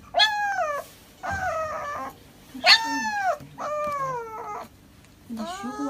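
Husky puppy crying in distress while held for an injection: about five high, arching whining cries, each under a second, with short pauses between them.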